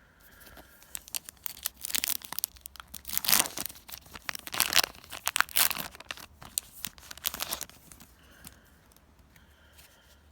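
A Yu-Gi-Oh booster pack wrapper being torn open and crinkled by hand: a run of crackly rips lasting several seconds, loudest midway.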